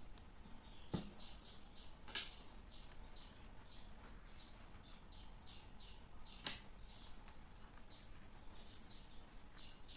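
Paper, card and a plastic ruler being handled on a table: a soft knock about a second in, a click about two seconds in and a sharp click, the loudest sound, about six and a half seconds in. Faint high chirps, a few a second, run underneath.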